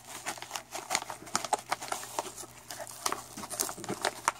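Crinkly yellow plastic wrapping around a bundle of coin capsules being twisted and pulled at by gloved hands, an irregular run of crackles and clicks.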